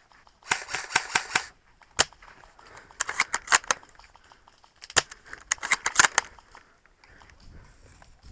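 Airsoft guns firing: three short rapid bursts of sharp cracks, with single sharp shots between them, about two seconds in and again about five seconds in.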